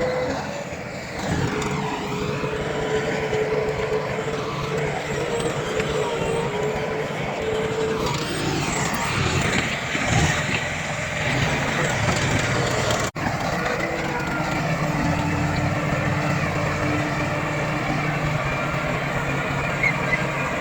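Heavy diesel earthmoving machinery running steadily, with one momentary gap in the sound about two-thirds of the way through.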